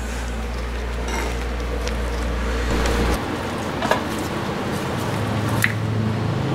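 Soft squishing as a rubber-bulb baster draws old brake fluid out of the master cylinder reservoir. After a cut, a few light metallic clicks as a pick works the rubber boots off the brake caliper slide pins.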